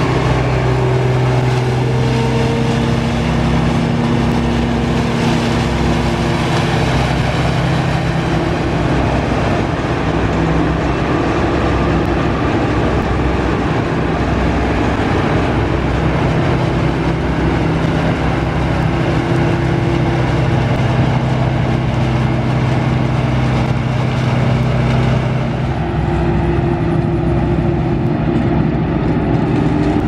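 Claas Dominator 208 Mega combine harvester working in a sunflower crop: its diesel engine and threshing machinery running steadily under load. The tone shifts a little about 26 seconds in.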